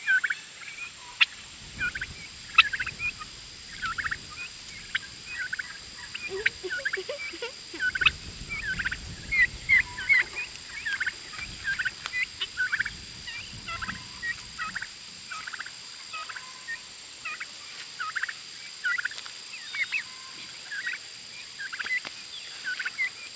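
Domestic turkeys calling: a steady run of short, high yelps and peeps, several a second at times. A low rushing noise comes and goes beneath them, strongest in the middle.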